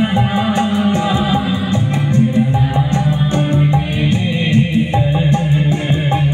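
Live band music through a PA system, with electric guitars and keyboard over a fast, steady percussion beat, and a man and a woman singing a Hindi worship song.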